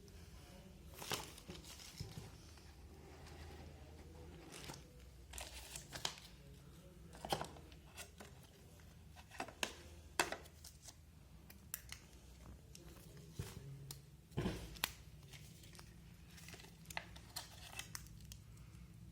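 Phone box and packaging being handled: brief crinkling and tearing rustles with scattered sharp clicks and taps, spread irregularly throughout.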